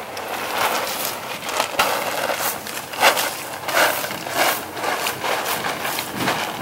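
Shelled corn being shaken out of a bag and scattered over mud and weeds, in a string of short, irregular swishes.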